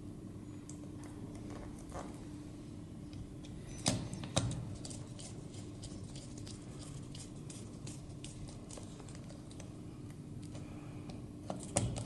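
Small clicks and taps of a screwdriver and wires being worked at the screw terminals of a fan motor's connection box, with two louder knocks about four seconds in and another near the end, over a faint steady hum.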